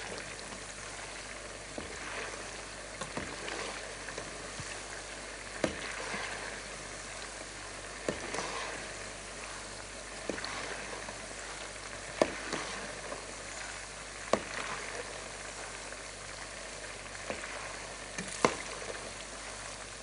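Meat pieces deep-frying in hot oil in a pot, a steady sizzle, with sharp clicks now and then as a metal slotted spoon stirs them and knocks against the pot.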